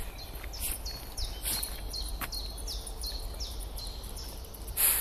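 A small bird singing a run of repeated high, downward-slurred notes, about three a second. Walking footsteps crunch now and then on a gravel path, loudest near the end.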